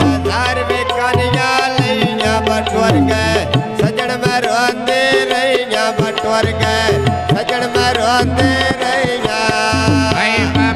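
A male voice singing a Punjabi mahiya folk song in a bending, ornamented line, accompanied by a hand drum in a steady rhythm and sustained held tones.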